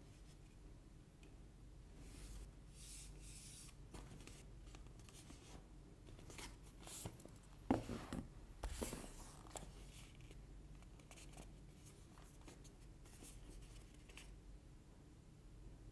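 Small cardboard earbud boxes being handled: soft rubbing and sliding of fingers and card, with a few light knocks near the middle as a box is set down and moved on a tabletop.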